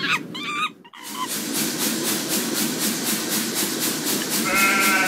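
Steady rushing hiss of a blacksmith's forge fire under its blower, with a faint regular pulse about four times a second. A short high-pitched wavering call comes near the end.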